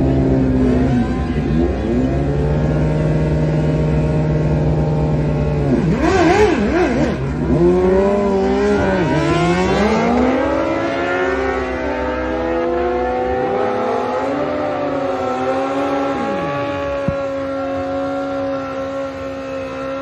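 A motor vehicle engine running: a steady note, then the pitch swings and climbs about six to ten seconds in as it revs, then it holds a steady higher note.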